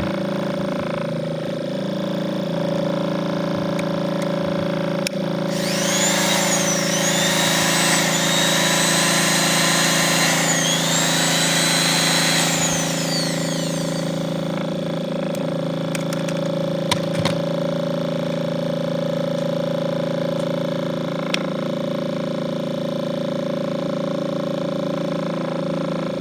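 Electric motor and fridge-compressor generator rig running with a steady hum. From about six to thirteen seconds in, a louder whining sound rises over it, its pitch dipping twice and recovering.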